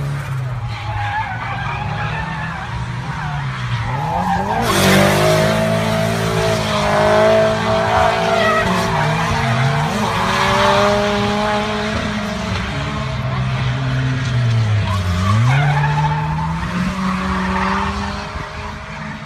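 Drift cars' engines revving hard, the pitch climbing and falling as the throttle is worked, with tyres screeching as the cars slide sideways. The revs surge sharply about five seconds in and dip and climb again about two-thirds of the way through.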